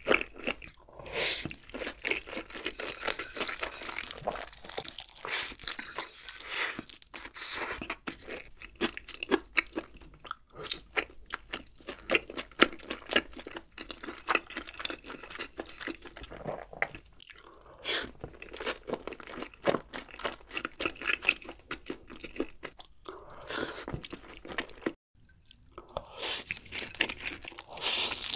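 Close-miked eating sounds: crunching and chewing mouthfuls of sauced fried chicken and black bean noodles in a dense, irregular stream of crunches and wet mouth sounds. There is a brief silent break about 25 seconds in.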